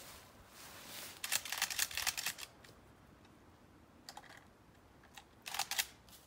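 Dry brush and grass crackling, with twigs snapping, as someone pushes through thick cover: a dense run of crackles about a second in, then shorter bursts near four seconds and again near the end.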